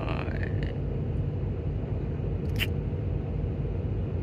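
Heavy diesel machinery running steadily with a low rumble. There is a short rising whine right at the start and a single sharp click about two and a half seconds in.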